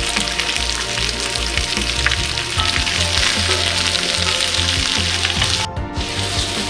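Food sizzling as it fries in a pan, a steady hiss that drops out for a moment about six seconds in, over background music.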